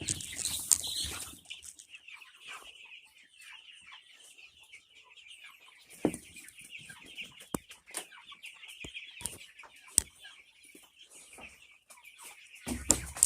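Game fowl (chickens) clucking, with scattered sharp taps and clicks and a steady high-pitched chirring underneath. There is a brief rustling burst about a second in and a fuller burst near the end.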